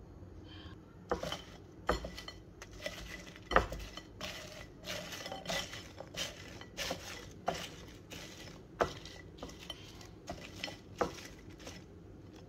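Irregular clinks and taps on a ceramic plate as seasoned French fries are tossed and turned on it, a couple of sharp knocks a second, some with a short ring.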